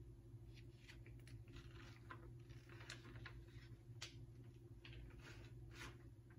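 Near silence: room tone with a low steady hum and faint scattered clicks.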